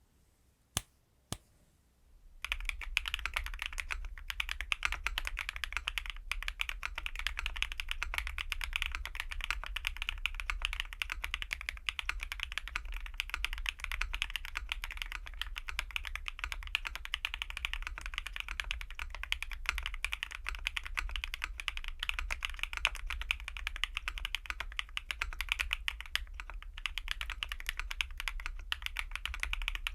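Fast, continuous typing on a Vega mechanical keyboard with stock BSUN Bunny switches on an aluminium plate, fully foamed, with JTK Night Sakura keycaps: a clacky keystroke sound. Two single keystrokes come first, then steady rapid typing from about two seconds in.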